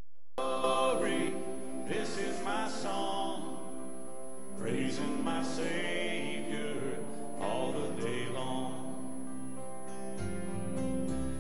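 A hymn begins about half a second in: a singer with instrumental accompaniment.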